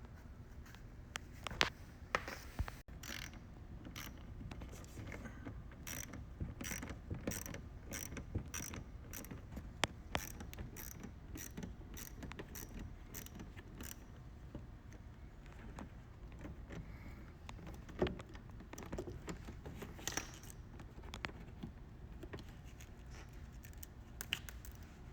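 Hand work on car-body fasteners and trim: a run of light mechanical clicks at about two a second for around ten seconds, with a few louder knocks and rattles before and after.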